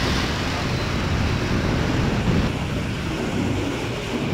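Steady rumble of wind on the microphone mixed with road and traffic noise from riding a motorbike through city streets.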